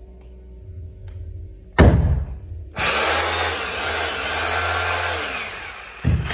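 Senkan 650 W rotary hammer drill switched on in a short burst about two seconds in, then run for about three seconds with its motor speed rising and falling under the trigger; it stops and starts again near the end.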